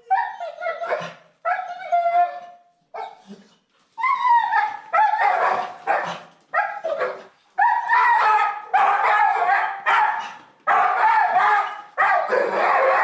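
A dog barking over and over in pitched, drawn-out yelping calls, a few in the first seconds and then almost one after another and louder from about four seconds in.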